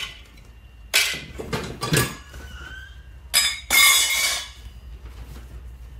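Small metal spare parts in plastic bags dropped and set down on a tile floor: several sharp clinks and clatters with crinkling plastic in the first part, then only a low background hum.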